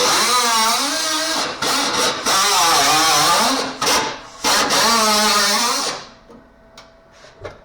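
A power cutting tool, a cut-off wheel or grinder, cutting sheet metal. Its pitch sags and climbs as the wheel bites and frees, with a few short breaks, and it stops about six seconds in, followed by a few light clicks.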